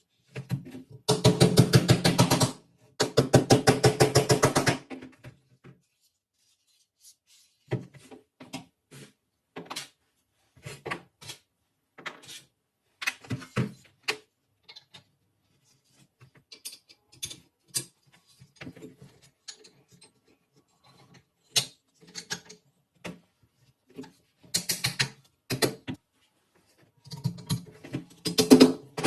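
Hand work on metal parts: two fast rattling runs of clicks about a second and three seconds in, then scattered single clicks and taps.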